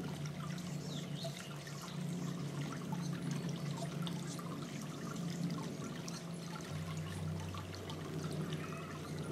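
Small garden bubbler fountain trickling and splashing steadily, with a low hum underneath.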